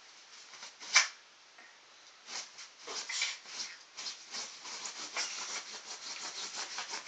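A small long-haired dog scratching at a bed sheet with its paws: rapid, rough scratching strokes, several a second, starting about two seconds in. A single sharp knock comes about a second in.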